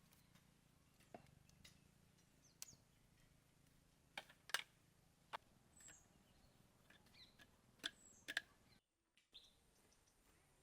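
Quiet outdoor ambience broken by scattered sharp clicks and knocks, about eight in all, with a few faint, short bird chirps.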